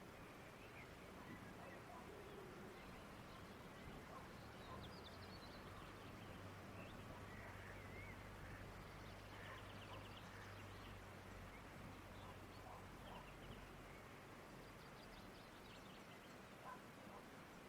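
Quiet countryside ambience: a steady faint hiss of open air with scattered distant bird chirps, and a faint low hum in the middle.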